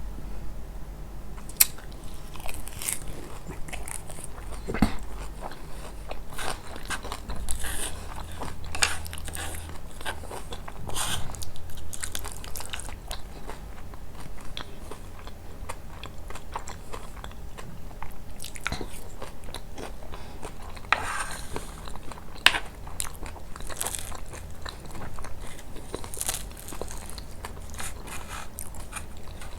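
Close-miked eating of kunafa: crisp crunching and biting of the toasted pastry with wet chewing, in irregular crackles and a few sharper snaps.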